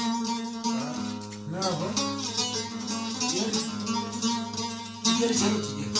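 Two bağlamas (saz) played together: a plucked Turkish folk tune over a steady low drone, with a sharply louder strum about five seconds in.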